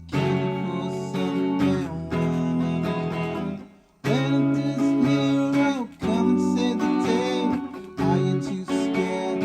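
Guitar music with strummed acoustic guitar, playing in phrases broken by short pauses.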